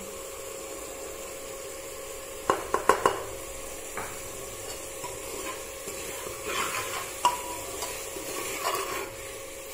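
Soya chunks, onion and potato frying in oil in an aluminium pressure cooker, with a faint steady sizzle. A quick cluster of sharp metal knocks comes about two and a half seconds in, and from about six seconds in a steel ladle stirs and scrapes against the pot.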